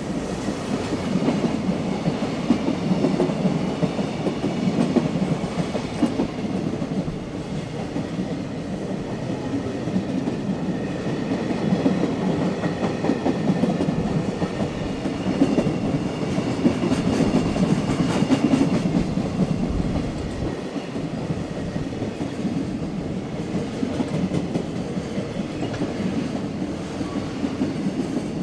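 Freight train rolling past close by, its wheels clattering steadily over the rails.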